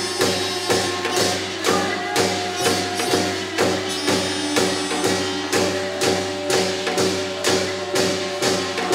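Korean traditional ritual music. A percussion beat strikes evenly about twice a second under a held melody line of sustained tones.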